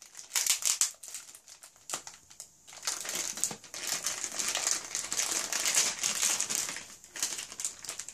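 Clear plastic wrapping crinkling as it is peeled off a pack of Play-Doh tubs, in quick, irregular crackles that are thickest and loudest from about three seconds in until about seven seconds in.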